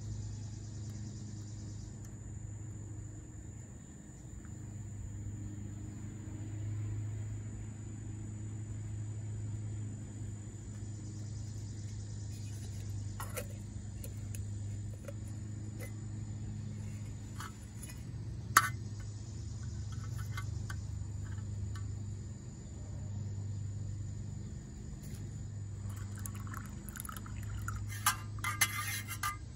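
Insects chirring in a steady high drone over a low steady hum. A single sharp click comes about two-thirds of the way through, and light metal clinks near the end as the metal canteen cup is handled.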